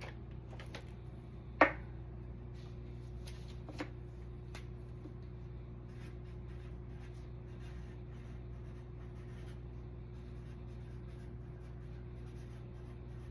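Steady low hum of a quiet room, with a few light taps and clicks in the first five seconds, the sharpest about one and a half seconds in, and faint scratching throughout.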